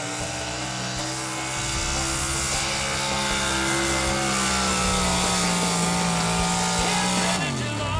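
A 500 cubic inch class pulling truck's engine running flat out at high revs while it drags the weight-transfer sled, a steady high drone. Near the end the revs fall away quickly.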